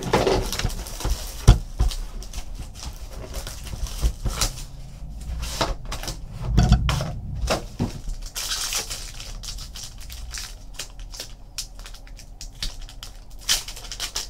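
A clear plastic trading-card pack wrapper crinkling as it is handled and torn open, mixed with clicks and knocks of cards and boxes handled on a table. The crinkling is densest about eight seconds in.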